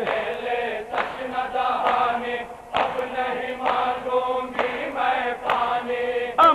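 A crowd of men chanting a noha refrain together in a steady rhythm, with the hand-on-chest slaps of matam (Shia mourning chest-beating) marking the beat about once a second.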